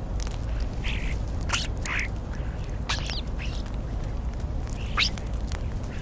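European starlings giving a string of short calls, about half a dozen scattered through a few seconds, close to the microphone. A steady low rumble runs underneath.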